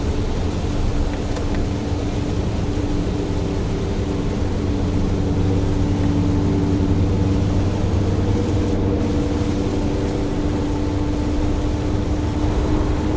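Mitsubishi Fuso heavy truck's diesel engine running steadily under way, a constant drone with a slight shift in pitch, over a continuous hiss of tyres on a wet road.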